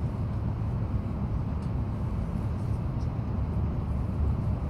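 E5 series Shinkansen running at speed, heard inside the passenger cabin as a steady low rumble of running noise.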